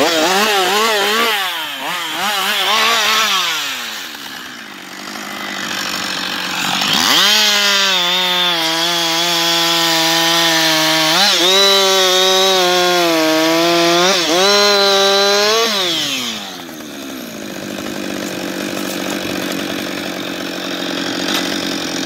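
Husqvarna 560 XP two-stroke chainsaw revving up and down, then held at full throttle for about nine seconds while cutting through a log, its pitch dipping briefly twice under load, before dropping back to idle.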